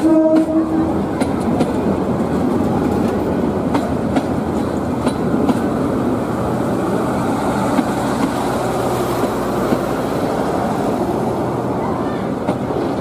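Local train hauled by a GT18LA-2 diesel locomotive running, with a steady rumble and wheels clattering over rail joints. A brief steady tone sounds right at the start.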